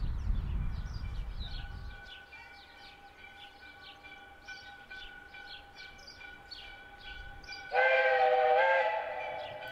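A narrow-gauge steam locomotive's whistle sounds once near the end. It is a loud chord of several tones held for about a second, dipping slightly in pitch. Small birds chirp throughout.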